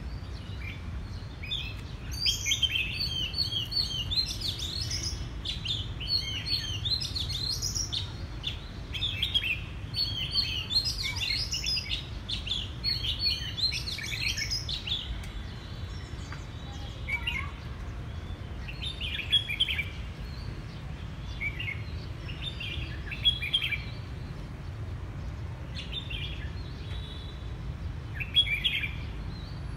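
Oriental magpie-robin singing: a rapid run of varied whistled phrases through the first half, then shorter phrases every few seconds. A steady low rumble runs underneath.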